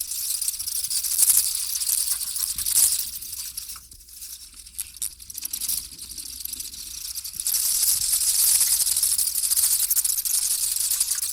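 Many vampire bats screeching and chittering together, a dense high-pitched crackle of rapid squeaks. It thins out a few seconds in, then swells louder and denser again about halfway through.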